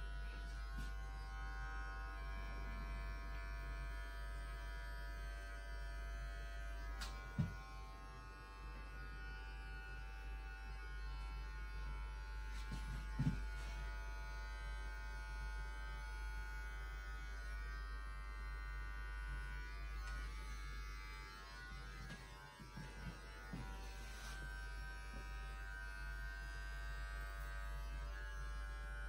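Electric hair clippers buzzing steadily as they cut a man's hair. Two brief knocks come through, one about seven seconds in and another about thirteen seconds in.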